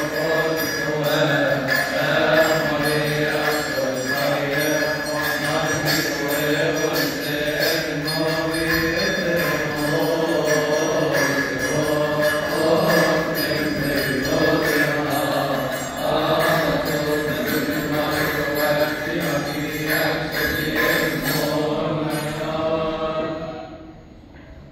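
Coptic liturgical hymn chanted in unison by several voices, with a steady high beat keeping time. The chant ends just before the end.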